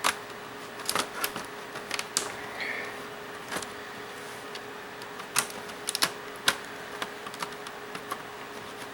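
Sharp, irregular plastic clicks and snaps of a pry tool working along the seam of a laptop's plastic case as its clips pop loose.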